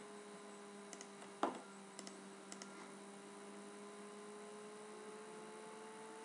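Low steady electrical hum, with a faint tone slowly rising in pitch, under a few faint computer mouse clicks and one louder short thump about one and a half seconds in.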